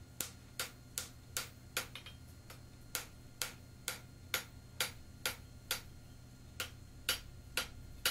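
Hand hammer striking a hot stainless steel bar on an anvil, drawing out a split leg: sharp metallic blows about two a second, with short pauses about two and six seconds in.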